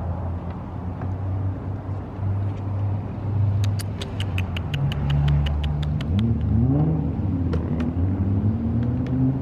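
A car engine runs steadily, then speeds up with a rising pitch about six seconds in. A quick run of about a dozen clicks, roughly seven a second, sounds about four seconds in.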